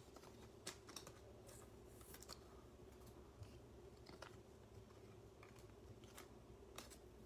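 Near silence with faint, scattered clicks and taps of trading cards being flipped through by hand and laid down on a table, over a steady low hum.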